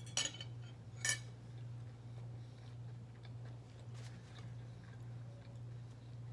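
Metal fork clinking twice against a plate as it is set down, the two clinks about a second apart, over a steady low hum.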